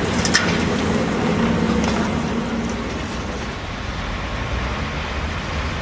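Heavy diesel engine of an excavator running steadily under load, with a short click about a third of a second in.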